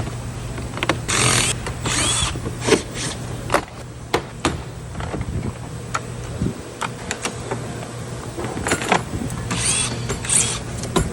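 Power tool with a socket fitted, run in short bursts of about half a second each: twice about a second in, then three times near the end. Between the bursts come scattered clicks and knocks of parts being handled.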